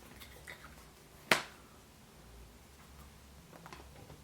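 A single sharp plastic click about a second in, with a few faint small clicks of handling around it: a Kinder Surprise egg's plastic toy capsule and its contents being handled and snapped.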